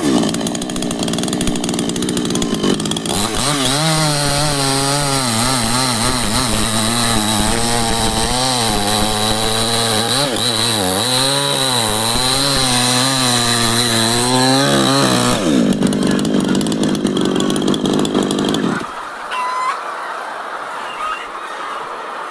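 Chainsaw cutting into neem wood at high revs, its engine pitch wavering as the chain bites. About fifteen seconds in, the revs fall to idle, and the engine stops a few seconds later.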